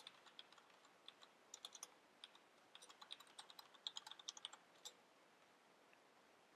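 Typing on a Corsair K70 RGB mechanical keyboard: quick, irregular runs of faint key clicks, ending with one last single keystroke just before five seconds in.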